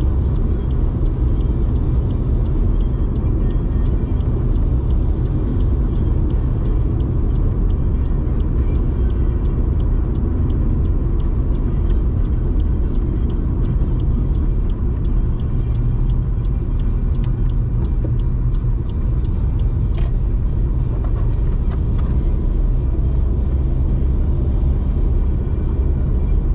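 Steady low rumble of a small car driving at road speed: tyre and wind noise with the engine underneath, and a faint, regular ticking throughout.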